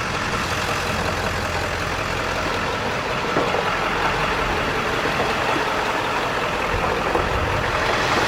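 Large vehicle engine idling steadily, a continuous low hum under an even wash of noise.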